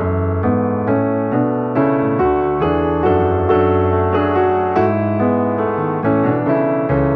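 Background piano music, with a quick run of notes over a steady bass line.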